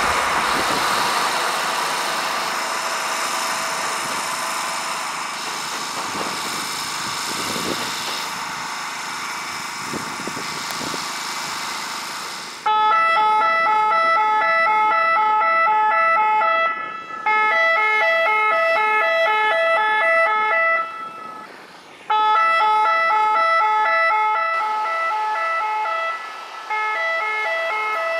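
Close-by rail machinery passing, a steady rushing rumble. Then, about twelve seconds in, the trackside automatic track warning system (Rottenwarnanlage) starts its alarm: a held high tone over lower notes that alternate several times a second, in phrases of about four seconds with short breaks. The alarm warns the track workers of an approaching train.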